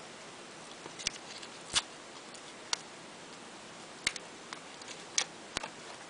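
Sparse, irregular light clicks and ticks, about six in all, from a small folded index-card piece and clear tape being handled and pressed by hand. They sit over a steady faint hiss.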